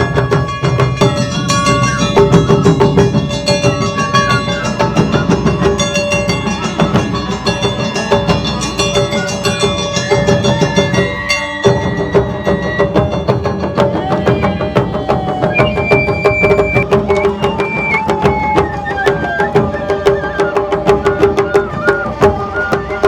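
Japanese traditional festival band music: rapid, dense drumming under sustained melody lines, with a brief break about halfway through and a gliding, bending melody after it.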